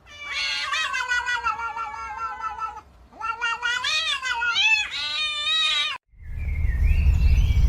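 A cat yowling in two long, drawn-out meows, the second starting about three seconds in and wavering up and down in pitch. Near the end, after an abrupt cut, a low steady rumble takes over.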